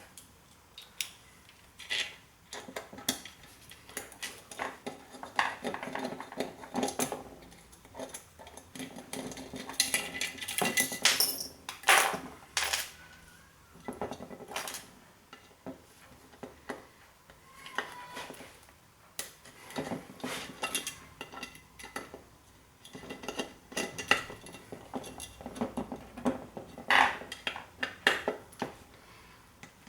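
Irregular clinks, clicks and scrapes of small metal tools and parts: a hex driver and its bits being worked against the screws of an old disk drive being taken apart.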